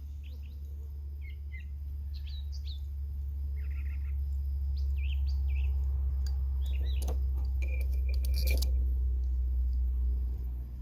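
Small birds chirping in short, scattered calls over a steady low rumble, with a couple of sharp clicks about two-thirds of the way through.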